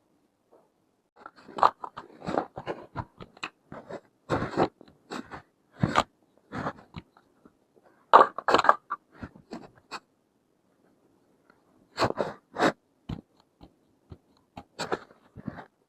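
Hard plastic toy pieces and packaging handled up close: irregular clusters of crinkles, clicks and scrapes, with short quiet gaps between.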